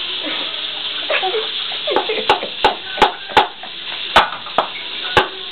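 Small child banging a black plastic spoon: a run of about ten sharp, irregular clacks, starting about two seconds in.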